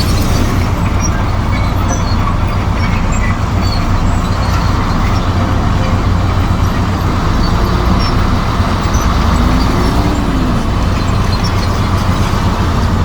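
Komatsu D58E crawler bulldozer's diesel engine running steadily under load as it pushes soil, a loud, even low drone with scattered faint metallic clinks.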